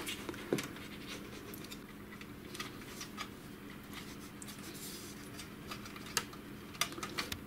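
Faint, scattered clicks and short scraping rustles as a white two-wire cable is pushed and pressed into the plastic cable guides on a laser printer's metal frame, with a few sharper clicks near the end.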